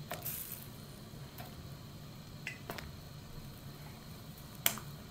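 Pieces of catfish being added to a pot of coconut-milk curry: a soft splash at the start, then a few clicks and clinks of metal against the pot, the sharpest one near the end, over a low steady hum.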